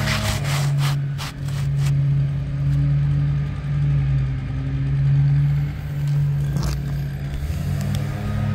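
Asphalt shingle tab scraping and crackling as it is lifted and pressed back down on the roof, mostly in the first two seconds, over a steady low drone.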